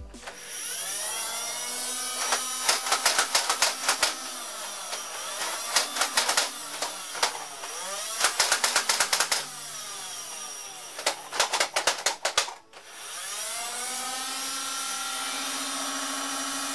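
Battery-powered flywheel motors of a NERF Hail-Fire foam-dart blaster whirring up in rising pitch and then running with a steady whine. Several bursts of rapid clicking come from the blaster's mechanism.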